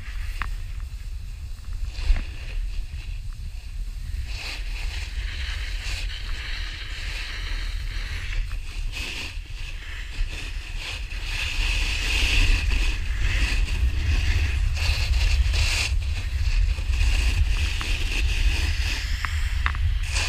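Wind rushing over an action camera's microphone as a steady low rumble, with the hiss of a snowboard sliding and carving through fresh snow; both grow louder about twelve seconds in.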